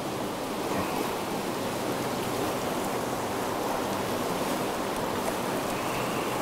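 Steady rush of fast water running through a small stream rapid.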